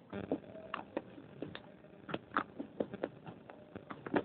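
Hard biscuit being bitten and chewed right at a clip-on microphone: close-up, irregular crunches, several a second.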